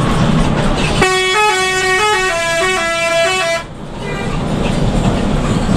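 Bus's multi-tone musical 'telolet' horn playing a quick tune of several notes sounding together and stepping up and down in pitch for about two and a half seconds, then cutting off suddenly. Before and after it, the steady rumble of a bus running on the highway, heard from inside the cabin.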